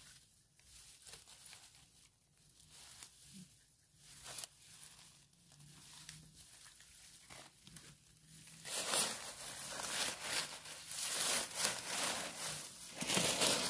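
Dry grass and fallen leaves rustling and crackling under gloved hands that are picking mushrooms from the ground. The crackling turns louder and denser about nine seconds in.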